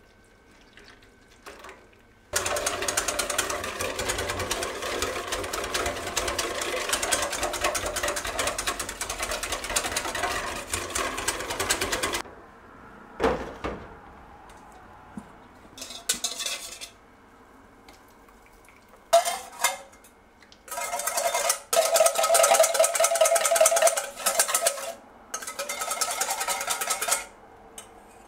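Wire whisk beating an egg, milk and sugar batter in a stainless steel bowl: a fast, steady metallic rattle lasting about ten seconds. After a single knock, several shorter bursts follow as the whisk scrapes the bowl while the batter is poured out into a plastic tray.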